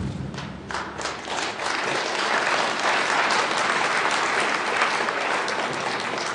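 Audience applauding at the end of a live performance, building over the first couple of seconds and then holding steady.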